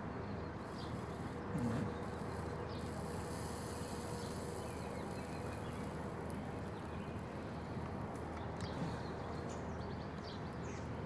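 Flux sizzling with faint scattered crackles as a soldering iron heats a twisted wire splice and solder is fed in, over a steady background hiss.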